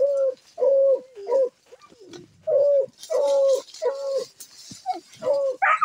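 A hunting dog barking in a run of short, evenly pitched barks at a paca's burrow, with a brief pause about two seconds in and a louder, higher-pitched cry near the end.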